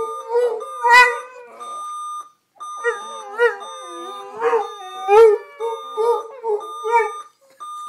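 A dog howls in a series of wavering, rising and falling howls, loudest about a second in and again around five seconds, along with an electronic alarm. The alarm's steady high tone drops out briefly twice.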